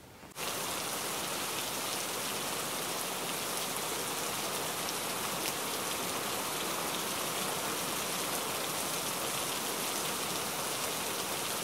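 Rain shower falling steadily, an even hiss that begins abruptly about half a second in.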